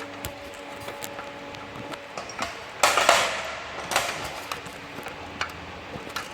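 Metal clinks and knocks of spanners working on a hydraulic pipe fitting on a two-post lift cylinder. There is one louder scraping rush about three seconds in, over a faint steady hum.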